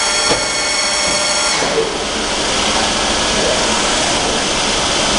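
CNC bed milling machine's axis drive whining in a steady high pitch as the milling head travels, stopping about a second and a half in with a soft clunk. A steady machine hiss continues underneath.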